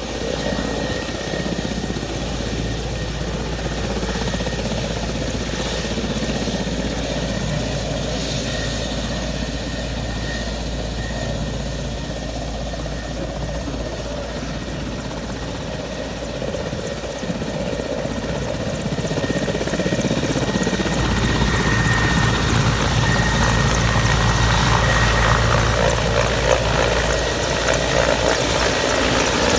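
Helicopter rotor and engine running steadily, growing louder and deeper about two-thirds of the way through.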